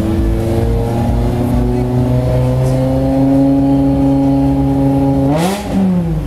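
BMW M6 engine held at raised revs, its pitch creeping up slowly, then a quick rev blip about five seconds in before dropping back.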